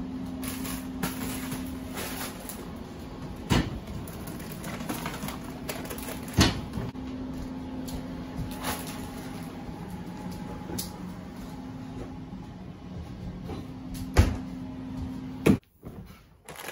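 Kitchen cupboard doors opening and closing, with three sharp knocks and scattered clicks and rattles, over a steady low hum.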